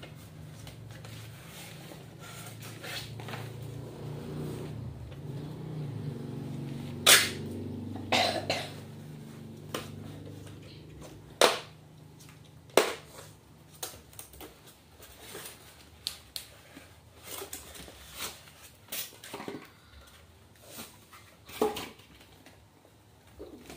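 Styrofoam packing and a plastic-wrapped speaker being handled during unboxing: a run of sharp rustles, scrapes and cracks, several of them loud. A low steady hum sits under the first half and fades out.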